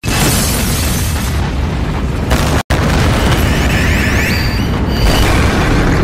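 Cartoon explosion and destruction sound effects, a loud, deep booming rumble that starts abruptly and briefly cuts out about two and a half seconds in before going on. High held tones that step in pitch join from about three seconds in.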